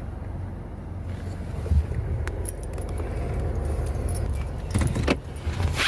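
Car running with a steady low engine rumble, with light rattling and clicks that grow louder near the end.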